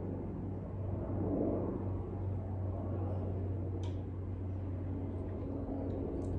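A steady low hum in a small kitchen, with a faint click about four seconds in and another near the end.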